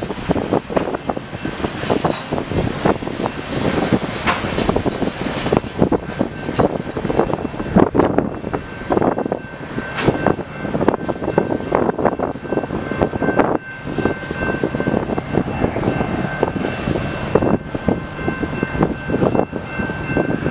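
Freight train tank cars rolling past, their steel wheels clattering and knocking over the rail joints with a steady rumble. From about halfway through, a high steady ringing tone sits over the clatter.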